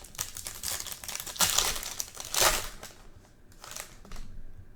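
Foil wrapper of a 2020 Topps Chrome X-Fractor trading-card pack crinkling as it is torn open, for the first three seconds or so, then only faint rustling.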